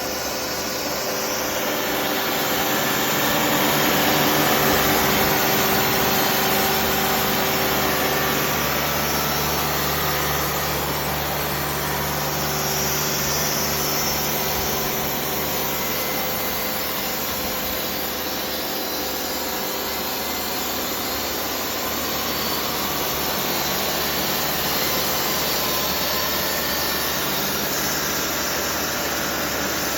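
TimberKing 2520 band sawmill at work: its turbocharged 65 hp Kubota diesel runs steadily while the band blade saws through a log. It gets louder for a few seconds near the start.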